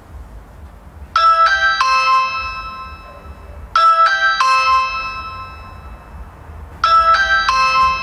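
Electronic doorbell chime: a three-note tune whose last note rings on and fades, sounded three times about every three seconds. A faint low hum lies underneath.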